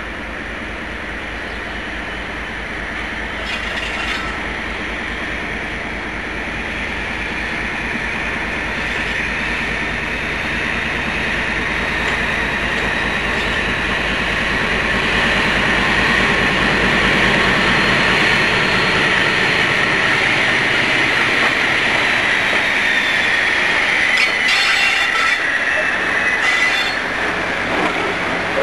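Class 56 diesel-electric locomotive with a 16-cylinder Ruston-Paxman engine working under power as it hauls loaded coal hoppers, growing steadily louder as it comes closer. High-pitched wheel squeal from the curve rides over it, with a few sharp knocks from the wheels near the end.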